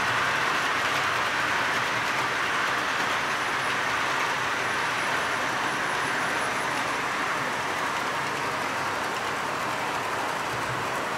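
H0-scale model freight train of metal four-axle wagons rolling around a wooden track helix: a steady rattling rumble of wheels on the rails that eases off slightly, with a few faint high squeaks midway.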